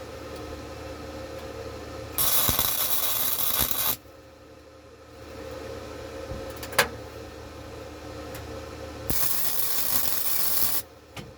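Two bursts of hissing spray, each lasting under two seconds, with a single sharp click between them.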